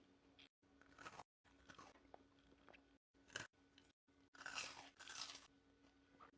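Close-miked eating: a few crunchy bites and chewing of chocolate treats, heard as short crackly bursts, the loudest about two-thirds of the way in.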